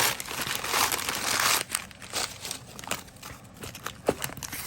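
Packaging crinkling and rustling as a mailed parcel is opened by hand, with a few sharp clicks.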